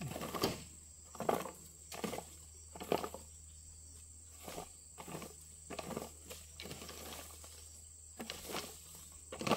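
A hoe scraping and dragging over dirt and dry palm litter in repeated strokes, roughly one a second, with a faint steady high whine underneath.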